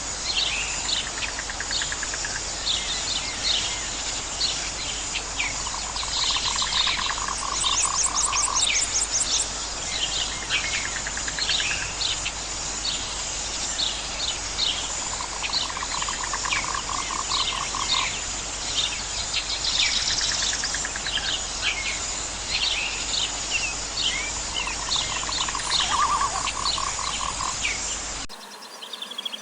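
Outdoor nature chorus: many short bird chirps over a steady high insect drone, with a low pulsed trill repeating about every nine seconds. The whole chorus cuts off abruptly near the end.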